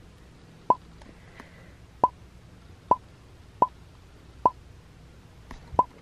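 A series of six short water-drop 'plop' sounds, each a quick rising blip, about one a second over near quiet.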